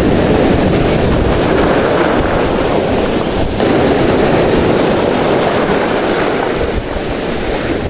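Steady rush of wind buffeting the microphone, mixed with sea waves washing.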